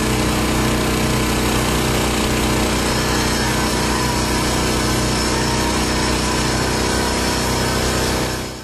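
Engine-driven MOSA Magic Weld 200 welder-generator running steadily, its small petrol engine under the crackle of an electric arc welding steel. The sound fades out near the end.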